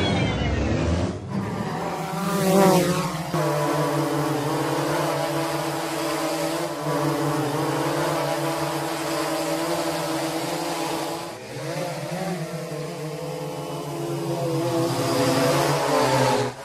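Quadcopter drone motors and propellers humming, a steady buzz of several tones that wavers up and down in pitch, with whooshing swells about two to three seconds in and again near the end.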